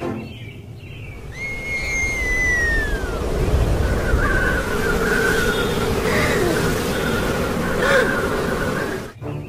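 Cartoon sound effect of a strong wind storm: a falling whistle, then a long rushing noise with a low rumble that stops suddenly near the end.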